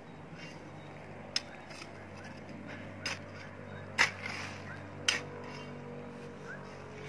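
A spade working a pile of potting soil mix on a plastic sheet: sharp clinks and scrapes of the blade, four or five times, with a short rustle of tossed soil about four seconds in. Faint high chirps repeat in the background.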